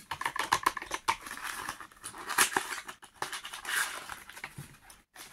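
Paper wrapping on a small parcel being handled and torn open by hand: irregular crinkling and rustling with sharp crackles, a few louder rustles about two and a half and four seconds in.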